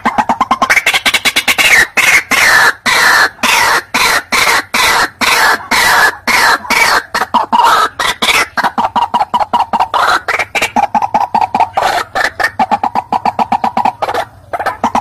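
White-breasted waterhen (ruak-ruak) calling: a loud, fast run of harsh repeated notes, several a second, many sliding down in pitch, settling into steadier, lower notes about halfway through.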